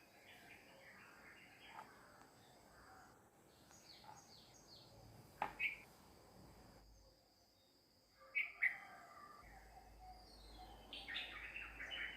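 Faint birds chirping, scattered short calls, with two brief, louder sharp sounds, each doubled, about five and a half and eight and a half seconds in.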